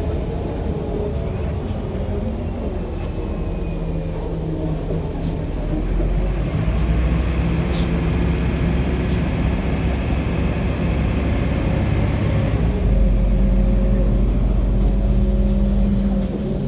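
Cabin sound of a MAZ-105 articulated city bus under way: its diesel engine running with a steady low hum over road noise, getting louder about six seconds in and staying up.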